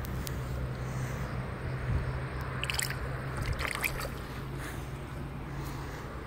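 Water sloshing and splashing as a hand lowers a caught chub into shallow water and releases it, with a few short splashes about three and four seconds in. A steady low hum runs underneath.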